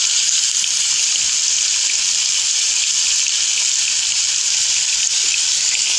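Pork ribs sizzling steadily in hot oil in a frying pan as they brown, a constant hiss.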